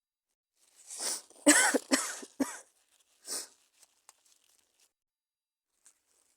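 A sick woman coughing: a breath in, then a short run of about four coughs in quick succession, followed by a breath and a few faint clicks.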